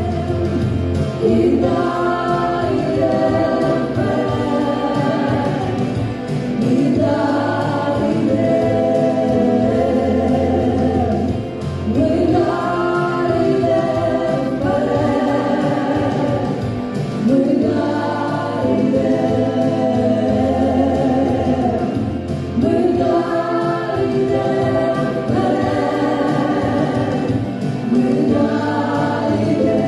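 A choir singing in phrases of about five seconds each, over a steady low accompaniment.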